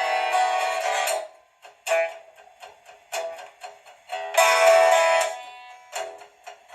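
Instrumental break of a song: strummed guitar chords, a long chord at the start, then single strokes about a second apart with short gaps between them, and no bass.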